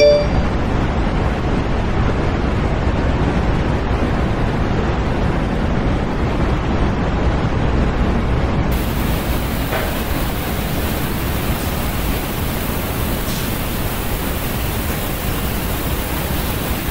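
Loud, steady hiss of noise like static, with no tone or rhythm in it. About nine seconds in it suddenly turns brighter and hissier at the top.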